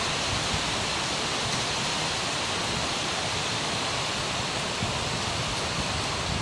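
Heavy rain and strong storm wind, a steady, even rushing noise.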